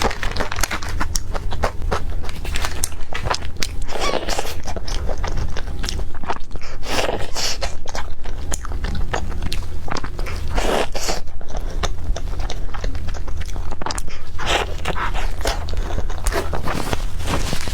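Close-miked eating: repeated bites and chewing with sharp crunches, the louder bites coming every few seconds.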